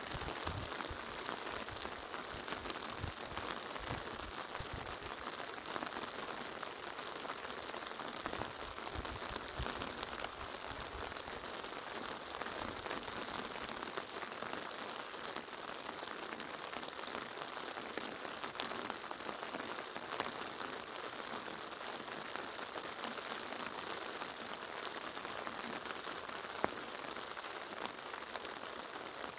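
Steady rain, an even hiss with no break, with low rumbling in the first several seconds.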